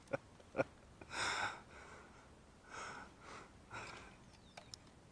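Faint breathing close to the microphone: four short, soft puffs of breath, with a couple of small clicks near the start and again near the end.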